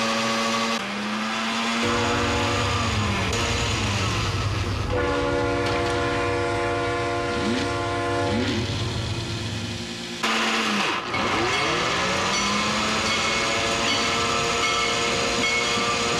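Train horns sounding in a run of long held chords, some sliding down in pitch as they fade, over a steady low hum.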